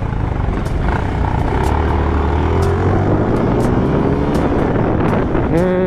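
Motorcycle engine running while riding through traffic, with road and wind noise. A short steady tone sounds near the end.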